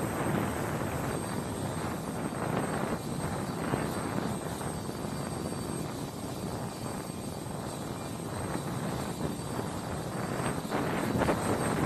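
MH-60R Sea Hawk helicopter turbines running on the flight line: a steady, dense mechanical noise with a thin high whine over it.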